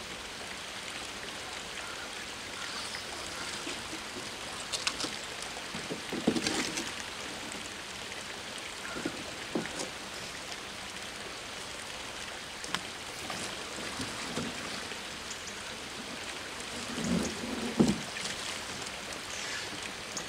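Plastic workman's barrier fence being hauled out of a canal onto the stone edge: water splashing and dripping off it, with scattered knocks and clatters, the loudest near the end.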